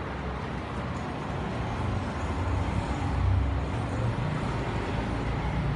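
Road traffic noise: a steady low rumble of vehicle engines, swelling a little about halfway through.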